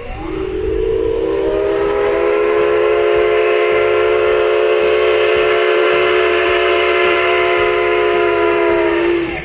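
Whistle of a JNR Class C56 steam locomotive, blown in one long, loud, steady blast of about nine seconds. It has several tones sounding together, rises in pitch as it opens, and sags slightly just before it cuts off suddenly near the end.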